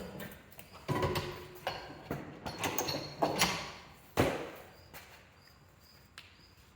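Handling noises: a series of sharp knocks and clatters of hard parts being moved or set down, then faint rustling.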